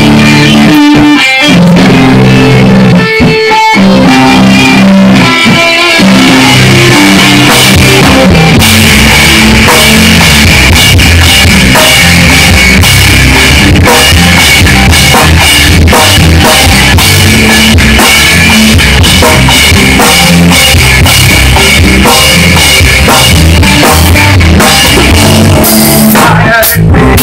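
Rock band playing loud, heard from right at the drum kit: drums and cymbals with electric guitar. A few seconds of stop-start hits with short gaps, then steady continuous playing, with a brief break near the end.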